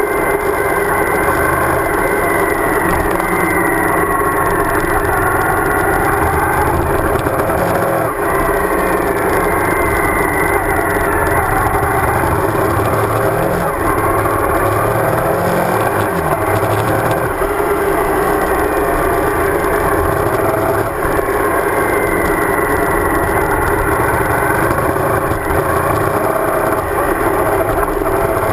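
Suzuki DL1000 V-Strom's V-twin engine running on the move, its pitch rising and falling gently with the throttle, over a steady rush of wind and road noise.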